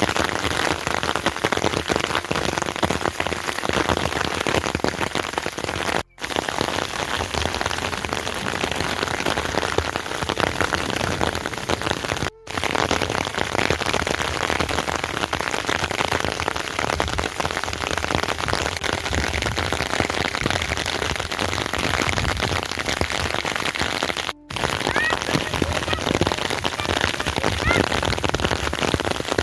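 Steady heavy rain falling, a dense even patter of drops on surfaces. It breaks off for a split second three times.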